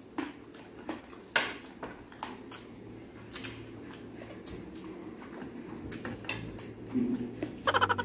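Spoon and fork clinking and scraping against ceramic bowls and plates while eating, as scattered light clicks.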